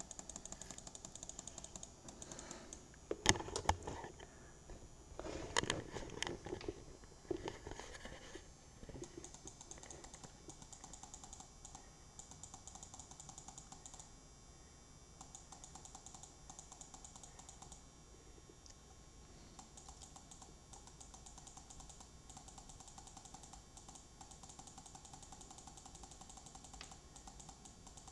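Computer keyboard keys pressed in long, rapid runs of light clicks, with a few louder knocks and clatter about three to eight seconds in.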